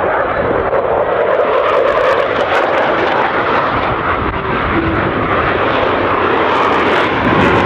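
Jet engines of KAI T-50B Golden Eagle display jets flying past: a loud, steady rushing noise with no clear tone.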